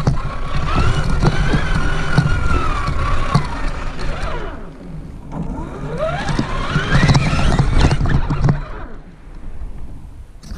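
Traxxas Summit RC truck's brushed electric motor and geartrain whining, the pitch rising and falling with the throttle, over the rumble and knocks of the chassis and tyres crawling over forest ground. It eases off briefly near the middle and goes quieter near the end.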